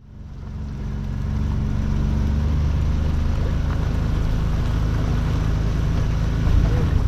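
A boat motor running steadily, fading up from silence over the first couple of seconds.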